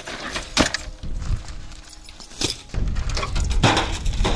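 Scattered clatter of metal and junk being handled and set down, with three separate sharp knocks, the loudest near the end, amid footsteps on dry ground.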